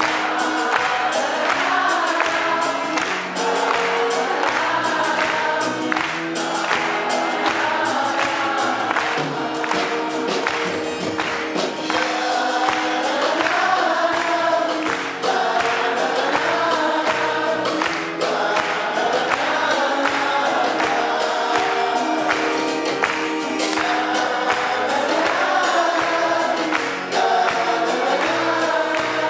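Live band playing a song, with several men singing the melody together over guitars and drums keeping a steady beat.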